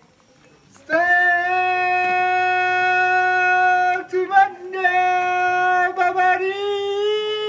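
A beatboxer's voice holding a long, steady, buzzy note that starts about a second in, broken briefly by a few short choppy vocal sounds, then held again with a slight rise in pitch near the end.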